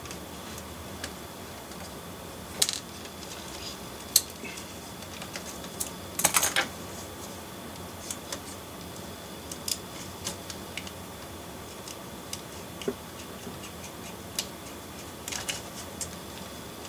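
Scattered small clicks and clinks of a 00 gauge model locomotive chassis and its small metal parts being handled and taken apart by hand, with a short cluster of sharper clicks about six seconds in.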